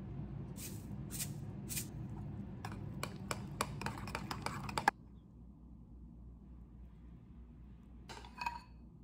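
Pepper shaken over a ceramic mixing bowl in three short strokes, then a metal spoon stirring mashed potatoes and clinking rapidly against the bowl. Near the end, a single ringing clink of the spoon.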